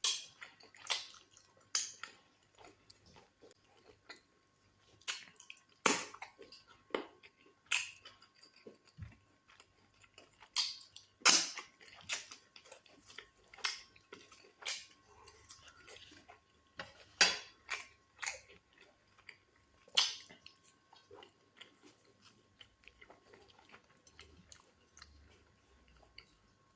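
Close-up eating sounds: wet chewing, lip smacks and squelches from fufu dipped in black soup and goat meat, in irregular sharp smacks a second or so apart.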